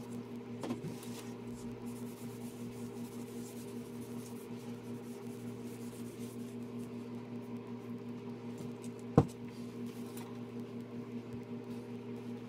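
Cloth rubbing faintly along a painted wooden walking stick over a steady low electrical hum, with one sharp click about nine seconds in.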